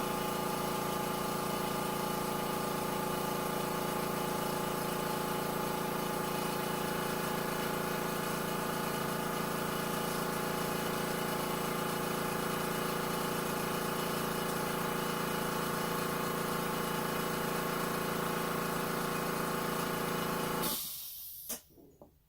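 Air compressor running steadily while it inflates a freshly plugged tire through an air hose. It shuts off abruptly near the end.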